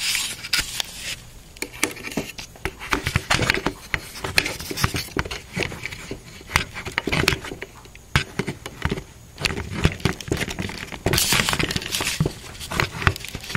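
Irregular clicks, knocks and rattles of hands handling an open computer case and its cables.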